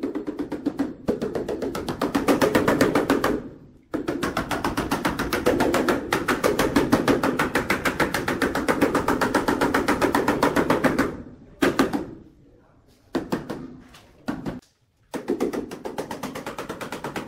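Rubber mallet rapidly tapping a large ceramic wall tile, several dull knocks a second in runs broken by short pauses, bedding the tile into its mortar.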